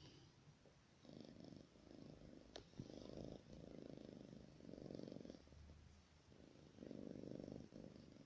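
Domestic cat snoring softly as it sleeps: a faint, low, rough sound on each breath, each lasting about a second, with a short lull past the middle. A single sharp click about two and a half seconds in.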